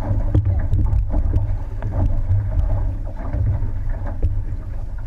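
Wind buffeting the microphone on a racing outrigger canoe, over the wash of water along the hull and the splashes and knocks of paddle strokes.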